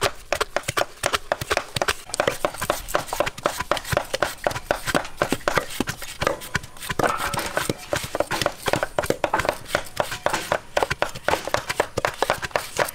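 Hand food preparation: metal peelers and knives scraping and slicing fruit, a quick, steady run of clicks and scrapes, several strokes a second.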